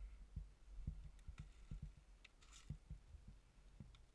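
Near silence, with faint, irregular low thuds and a few soft clicks from the wearer's movement and gear handling against the head-mounted camera.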